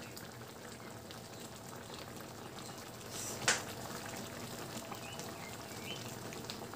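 Pork stew simmering in a wok, bubbling steadily, with a spoon stirring through the sauce at first. A single sharp clink stands out about three and a half seconds in.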